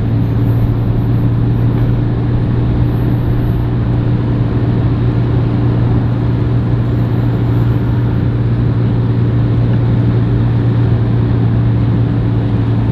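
An engine running steadily at idle, a constant low hum that does not change in pitch or level.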